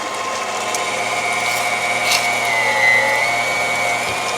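KitchenAid stand mixer motor running on speed 4, driving the metal meat grinder attachment as it grinds beef: a steady whine whose pitch sags briefly about two and a half seconds in, then comes back up.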